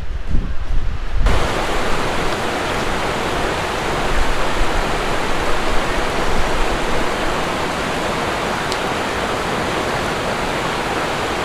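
Wind buffeting the microphone, cut off about a second in by a steady rushing of water, like a stream or small waterfall.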